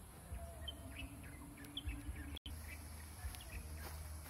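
Birds chirping in short, scattered calls over a low, irregular rumble. The sound drops out completely for an instant about halfway through.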